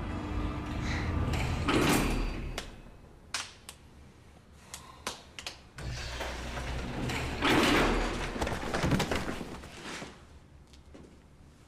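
Sharp knocks and bangs, with two longer, louder noisy bursts about two seconds in and about eight seconds in, after steady music fades out early on.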